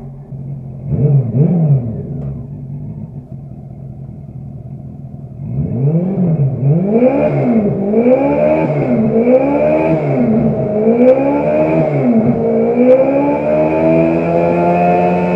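Motorcycle engine idling, blipped twice in quick succession about a second in, then from about five seconds in revved up and down repeatedly, each rev rising and falling smoothly, before holding a steady higher pitch.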